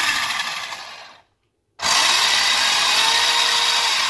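Toy-grade RC car's new sprint motor and gearbox spinning the wheels off the ground under throttle from a proportional controller, on a three-cell li-ion pack. Two runs: the first dies away about a second in, then after a short pause a longer, steady run starts about two seconds in.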